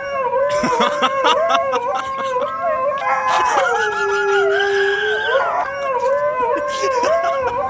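A dog howling in long, wavering notes, the pitch dipping lower around the middle.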